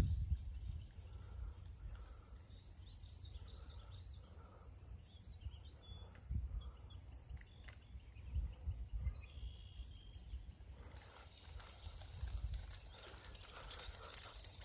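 Faint pondside ambience: a steady high insect trill, a few short bird chirps, and low rumbling bumps on the microphone. In the last few seconds a louder rustling hiss with rapid ticks comes in.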